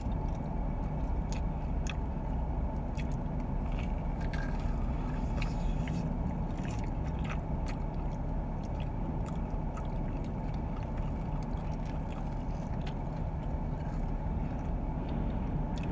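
Steady low rumble inside a car's cabin, with scattered crunching and clicking from chewing a potato-cube-coated Korean corn dog.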